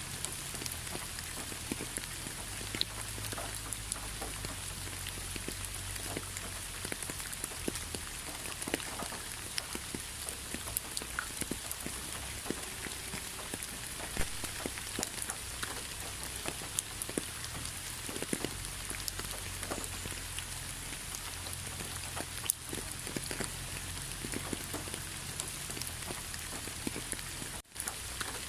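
Steady rainfall: a continuous hiss of rain with many separate drops ticking through it and a low rumble beneath. The sound drops out briefly about a second before the end.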